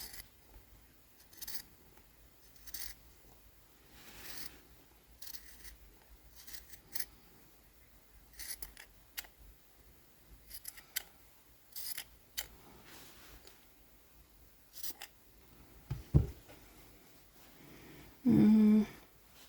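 Scissors snipping through folded sweatshirt fabric in short, irregular cuts. There is a thump about three-quarters of the way through and a brief loud hum near the end.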